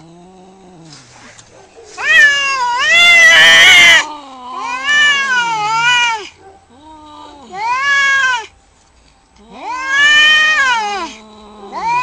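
Domestic cats in a face-off, caterwauling: the threat yowls of a standoff before a fight. A faint low growl comes first, then four long, wavering yowls. The first yowl is the loudest and turns harsh and noisy partway through.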